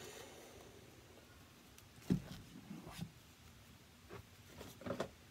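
Quiet handling of baseball trading cards: card stock rustling as the cards are shuffled and flipped through, with a few soft knocks, the loudest about two seconds in and a couple near the end.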